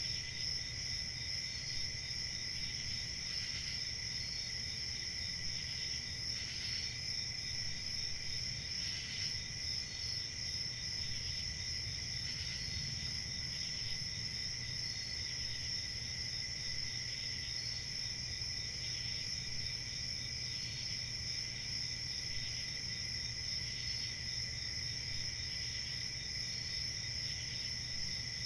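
Crickets chirping in a steady, continuous chorus, a high trill with fainter pulsed chirps repeating under it, over a low background rumble.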